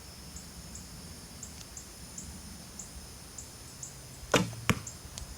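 A bow shot: the string releases with a sharp snap about four seconds in, and a third of a second later the arrow hits the archery target with a second sharp smack. Crickets chirp steadily in the background.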